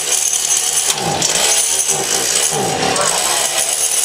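Chainsaw engine running loud and rasping, its pitch swooping down and back up about every second and a half as it is revved.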